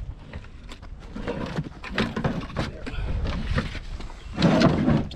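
Plastic harvest baskets and packboards being loaded into a pickup truck bed: a run of irregular knocks, bumps and scrapes, loudest about four and a half seconds in.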